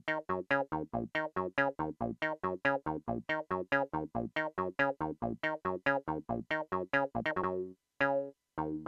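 Knobula Poly Cinematic Eurorack synth playing a fast sequenced run of short, plucky notes, about six a second. Near the end the run thins out into a few longer, separate notes.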